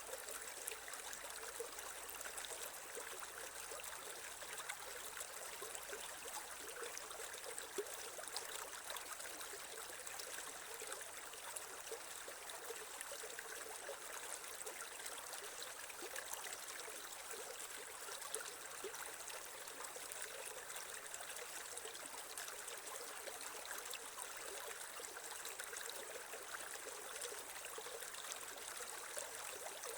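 Creek water flowing and trickling over stones, a steady babble with small splashes throughout.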